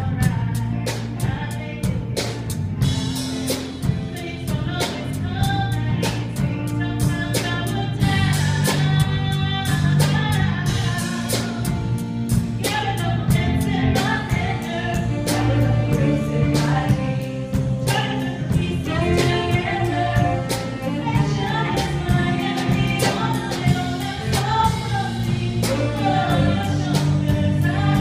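Praise band playing an upbeat worship song, with singing over a steady drum beat and bass.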